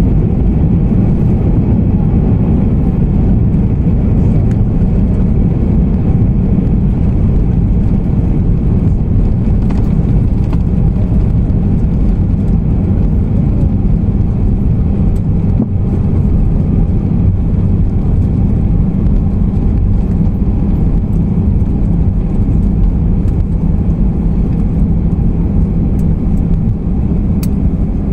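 Inside the cabin of an Airbus A320 rolling down the runway after touchdown: a steady, loud, deep rumble of the engines and the wheels on the runway as the plane slows.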